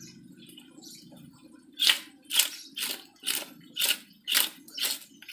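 Wooden-handled knife scraping the large scales off a big fish, in quick, even strokes about two a second, each a crisp crackling rasp as the scales come loose. The strokes begin after a short lull.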